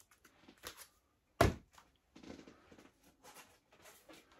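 Vinyl LP records in their cardboard jackets being handled, with one dull thunk about a second and a half in as a record is set down, and soft rustling and light knocks around it.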